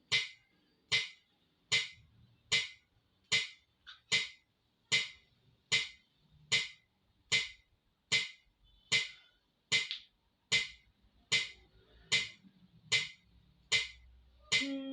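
A metronome-like click ticks steadily at about 75 beats a minute, one sharp click every 0.8 seconds. Near the end a sustained musical tone comes in under the clicks.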